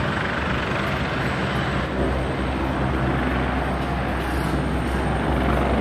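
Helicopter running on its pad before takeoff: a steady rotor and engine noise, with the low throb growing stronger about two seconds in.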